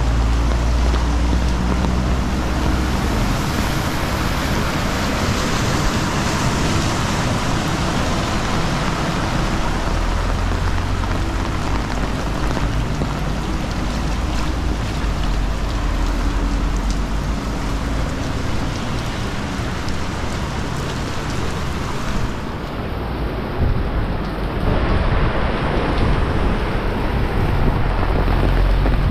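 Heavy rain pouring steadily, with wind gusts buffeting the microphone in a low, uneven rumble.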